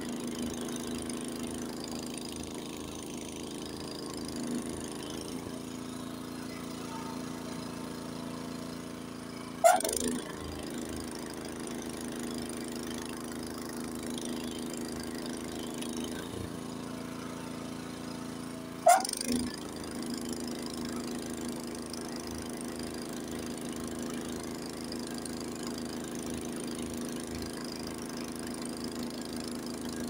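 Honda HS80 snowblower's single-cylinder engine running steadily while it throws snow, with two sharp knocks, the loudest sounds, about ten and nineteen seconds in.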